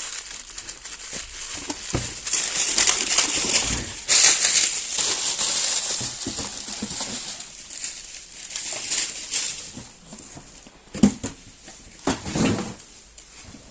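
Beehive (honeycomb) wrapping paper crinkling and rustling as a plate is wrapped by hand, in loud, uneven stretches, with a couple of sharp knocks near the end.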